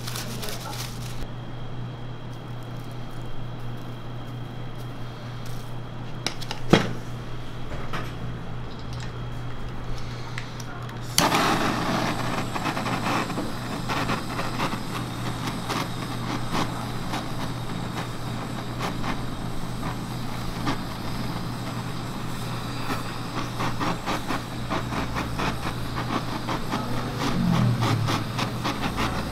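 Kitchen blowtorch lit with a sudden start about eleven seconds in, then hissing steadily as it caramelises a layer of sugar on top of a crepe. Before it, a steady low hum and one sharp click.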